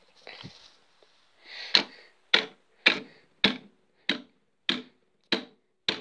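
An elbow, padded by a jacket sleeve, strikes the glass front of a 1960s GENT 1102 fire alarm call point: about eight sharp knocks, roughly one every 0.6 seconds, starting a little under two seconds in, each with a short ring. The blows are not breaking the glass.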